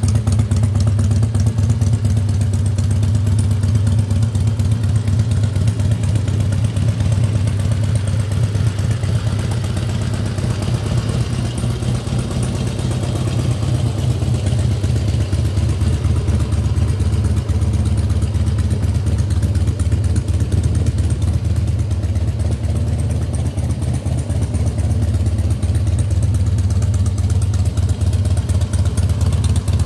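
2003 Harley-Davidson Night Train's 1450cc V-twin engine idling steadily through Screaming Eagle exhaust pipes.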